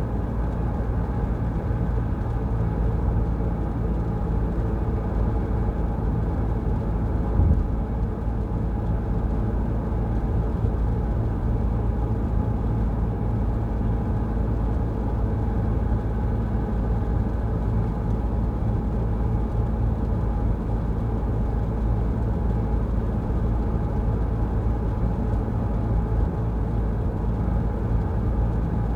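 Car driving along a wet road: steady road and engine noise, with a single short thump about seven and a half seconds in.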